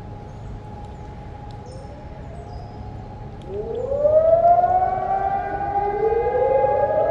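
Electronic civil-defence sirens sounding over a wide area. A distant siren holds one steady tone. About halfway through a much louder one starts, rising in pitch before holding steady, and a third begins its rise near the end.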